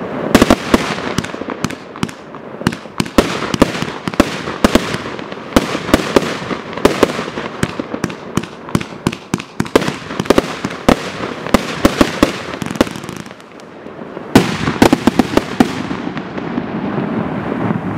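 A 235-shot consumer fireworks cake firing: sharp shots in rapid succession, several a second, with shells bursting overhead. About thirteen seconds in there is a brief lull, then a last loud volley that thins out near the end.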